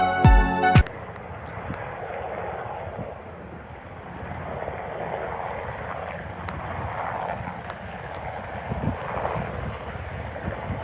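Irish Coast Guard rescue helicopter coming in to land, its rotor and engines making a steady whooshing drone with faint low thudding underneath. A short stretch of music cuts off just under a second in.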